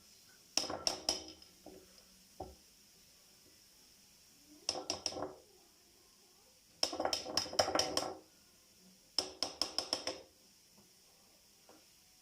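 Kitchen utensils clinking against dishes and glass in short bursts of rapid clinks, about four bursts, with a single knock a little after two seconds in.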